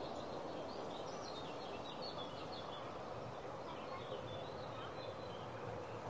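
Outdoor ambience: a steady hiss of background noise with faint small-bird twittering high above it, thinning out after about four seconds.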